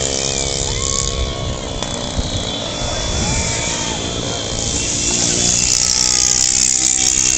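A slow convoy of cars, vans and a motorbike passing, their engines running in a steady drone, with sustained tones through much of it and some voices.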